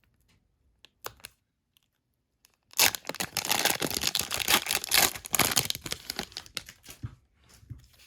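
A few small clicks, then about 3 s in a trading-card pack wrapper is torn open and crinkled, a loud rustling and ripping lasting about four seconds before it fades.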